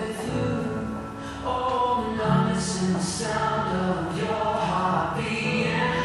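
Recorded music playing: a song with singing voices held on long notes over an instrumental backing.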